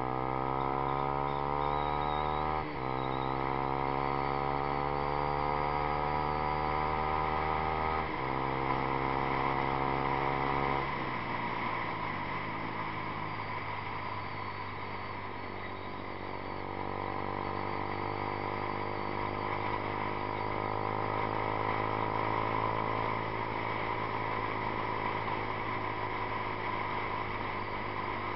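2012 Yamaha YZF-R15's single-cylinder four-stroke engine through a Two Brothers Racing aftermarket exhaust, rising in pitch as the bike accelerates through the gears. It drops in pitch at upshifts about three and eight seconds in, and again at about eleven seconds, then holds a fairly steady note at cruising speed.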